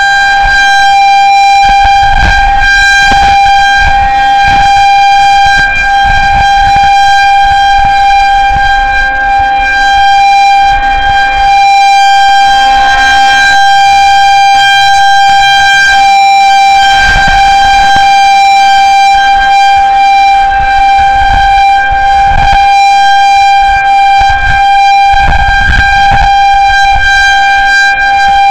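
Federal Signal 2001-130 outdoor warning siren sounding a tornado warning at close range, very loud: one steady tone with strong overtones that holds without rising or falling.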